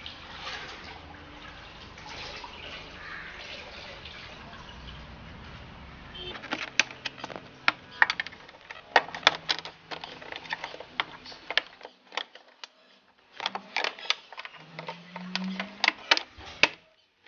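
Plastic interior trim panels being pressed and worked back into place by hand and with a plastic trim tool: a rapid run of sharp plastic clicks and snaps, starting about six seconds in after a steady hiss.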